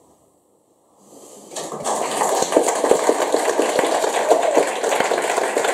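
Audience applauding: after a second of quiet the clapping starts, swells quickly and runs on as steady, dense clapping.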